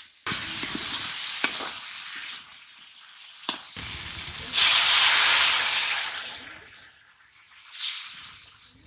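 Potato and fish pieces sizzling in hot oil in a cast-iron karahi, with a metal spatula clicking and scraping against the pan. About halfway through, water is poured into the hot pan, which sets off a much louder hiss that then dies away.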